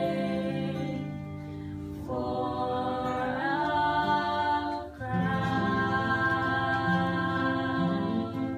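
A vocal group holds sustained chords in close harmony without words. The chord changes about two seconds in, rises a step shortly after, and changes again about five seconds in.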